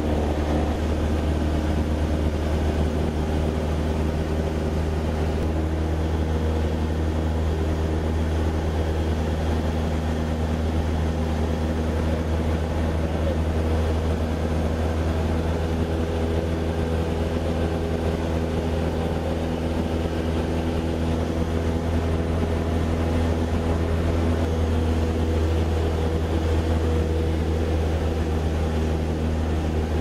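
Small single-engine high-wing plane's engine and propeller running at a steady cruise, heard from inside the cabin as an even low drone with steady pitched tones above it.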